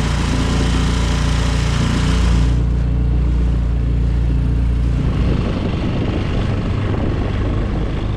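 Small boat's outboard motor running steadily underway, with a rushing wind-and-water hiss that drops away a few seconds in.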